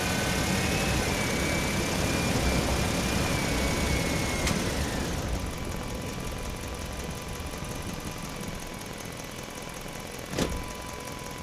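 Truck engine idling, with a steady high whine and hiss over the first five seconds that then fades away. A click comes about four and a half seconds in, and a single sharp knock comes near the end.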